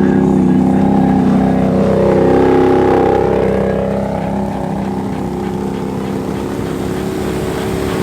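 Side-by-side engine running hard, its pitch sweeping up and down about two to three seconds in, then a little quieter.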